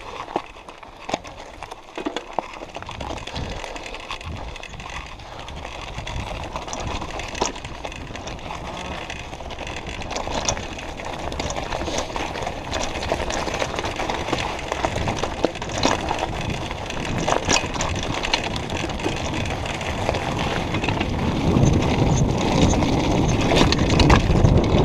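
Mountain bike tyres rolling over loose gravel on a downhill track, with the bike rattling and clicking over stones. The noise grows steadily louder as speed builds, loudest near the end.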